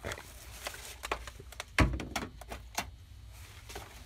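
Handling noise from brake shoe parts being moved about: scattered light clicks and knocks, with one louder dull thump a little under two seconds in.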